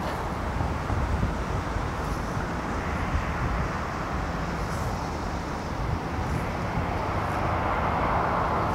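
Storm-force wind buffeting the microphone: a heavy, uneven rumble under a steady rushing hiss that swells toward the end.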